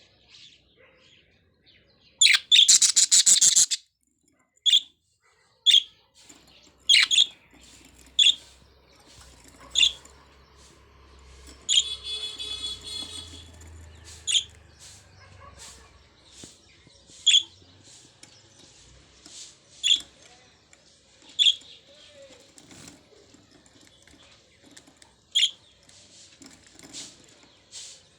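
Budgerigars calling: a loud, harsh chattering burst about two seconds in, then short, sharp, high chirps every second or two, with one buzzy churring call near the middle.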